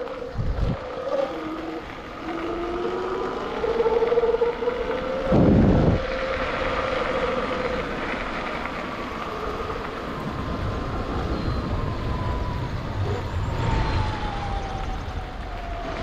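Sur-Ron X electric dirt bike being ridden, its motor and drivetrain whine rising and holding with speed, then falling slowly in pitch over the last several seconds as it slows, over a low rumble of wind and tyres. A brief loud rush about five seconds in is the loudest moment.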